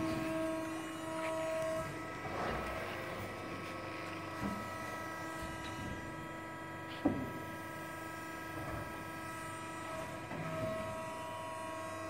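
ACCURL CNC press brake running, its servo-hydraulic drive giving a steady hum of several tones. A higher tone comes in at the start and again about ten seconds in, and there is one sharp click about seven seconds in.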